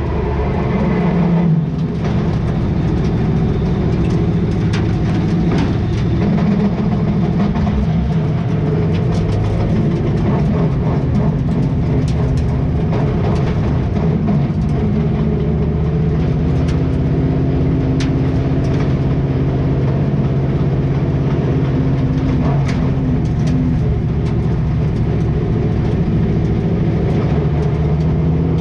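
Outlaw late model race car's V8 engine heard from inside the cockpit. The engine note drops about two seconds in, then runs steadily at low revs while the car rolls slowly. Scattered clicks and rattles from the car sound over it.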